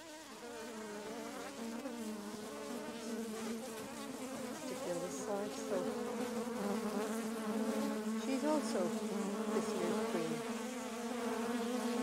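Honeybees buzzing around an open hive: a steady hum of many bees, growing louder over the first few seconds, with the pitch of passing bees bending up and down now and then in the middle.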